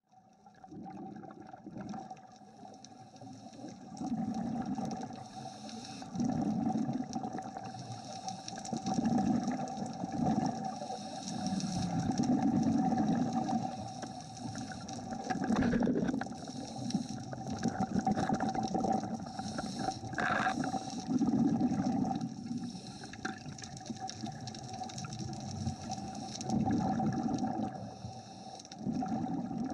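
Underwater sound picked up through a camera housing: water rushing and gurgling in surges every two to three seconds over a faint steady hum.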